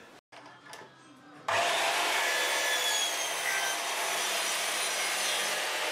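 Sliding compound mitre saw cutting through a board: a steady, loud whine and hiss of the blade in the wood that starts abruptly about a second and a half in, after a quiet stretch with a few faint ticks.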